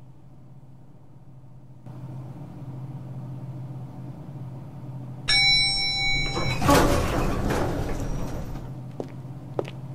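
An elevator arrival chime rings about five seconds in, with several clear tones. Then the lift doors slide open. A low steady hum runs underneath.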